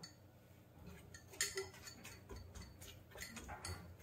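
Metal spoon tapping and clinking against a stainless steel kadai while stirring raw vegetables, faint light clicks coming irregularly, several a second.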